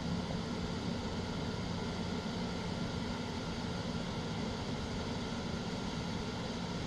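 Steady background noise, an even hiss with a faint low hum, unchanging throughout.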